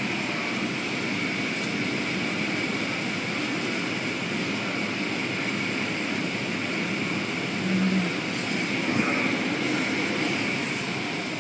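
Automatic car wash heard from inside the car: rotating cloth brushes scrub across the windshield amid water spray and running machinery, making a steady rush of noise.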